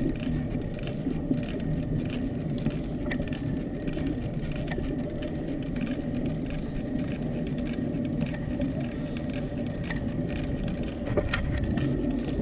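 Bicycles rolling along an asphalt path: a steady low rumble of tyres and frame, broken by a few sharp clicks.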